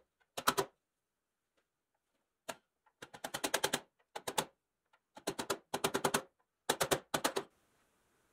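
Bursts of rapid, sharp clicking and tapping, several clicks a second, as a small white hand tool is worked against the pressed-steel body of a toy truck. The clicking stops near the end.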